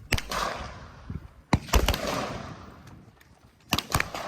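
Gunfire from a practical shooting course: about six shots in irregular groups, one near the start, a quick two or three around the middle and two near the end, each followed by a long rolling echo.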